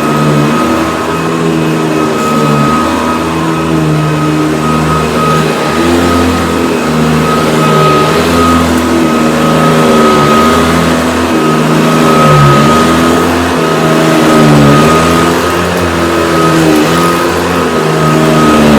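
Hoover Decade 80 upright vacuum cleaner running, a steady high whine over a lower hum that wavers in pitch as its load shifts.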